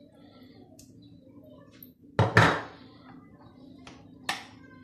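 Kitchen utensils clattering against a cooking pot: one loud knock with a short ring about two seconds in, then a lighter clink near the end.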